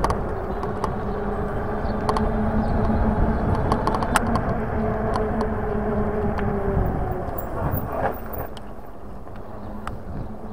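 Riding a Lankeleisi X3000 1000 W e-bike: wind rushing over the microphone and tyre noise on tarmac, with a steady electric-motor hum that fades out about seven seconds in. Scattered small clicks and rattles from the bike run through it.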